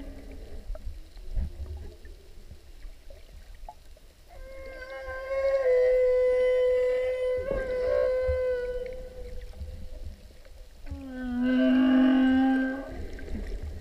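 Humpback whale song heard underwater: a long, higher moan that falls slightly at its end, then a shorter, lower moan near the end, over a low rumble of water.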